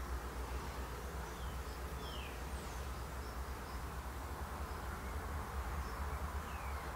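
A steady low electrical hum, with a few short, faint high chirps now and then.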